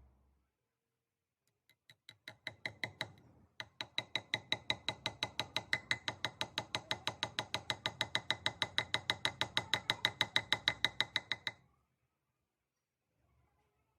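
Ratchet clicking rapidly and evenly, about six sharp metallic clicks a second, with a short break about three seconds in; it stops shortly before the end.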